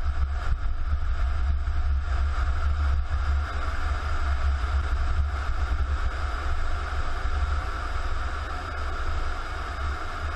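Wind buffeting the microphone of a camera on the roof of a moving emergency vehicle, a steady low rumble mixed with road and engine noise. It eases a little near the end.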